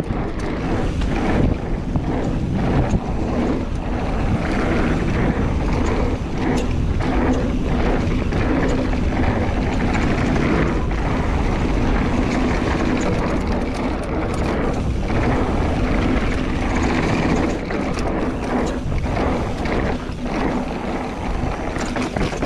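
Mountain bike riding fast down a dirt trail: tyres rolling over packed dirt, with frequent short clatters from the bike over bumps, and wind rushing over the microphone.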